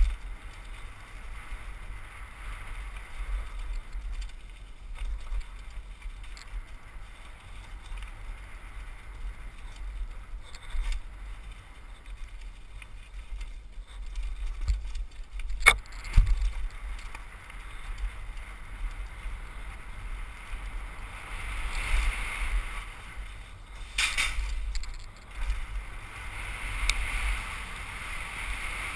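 Trek Session 8 downhill mountain bike riding down a dirt and rock trail: tyres running over dirt and rock with a steady wind rumble on the helmet microphone. Sharp knocks from the bike hitting rocks come about halfway through and again around three quarters in.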